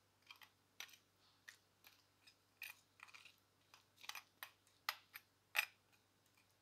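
Faint, irregular clicks and scrapes of a metal spoon against a glass bowl and a crisp fried rice cake as fish sauce is spooned onto the cake. The sharpest click comes about five and a half seconds in.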